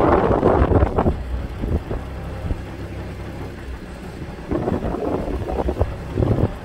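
Low rumble of a car driving, with wind buffeting the phone's microphone in gusts, strongest in the first second and again near the end.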